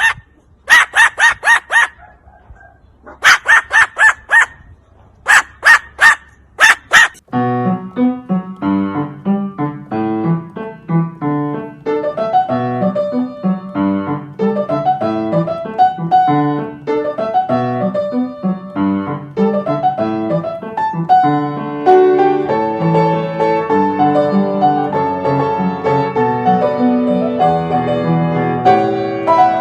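Three quick bursts of high yapping animal calls, several calls to a burst, in the first seven seconds, then piano music for the rest.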